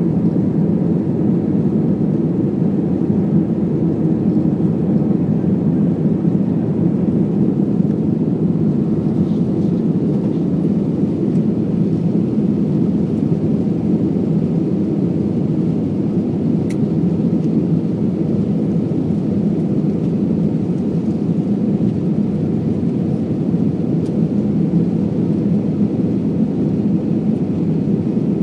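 Jet airliner cabin noise in the climb after takeoff: a steady, low drone of the engines and rushing air, unchanging throughout.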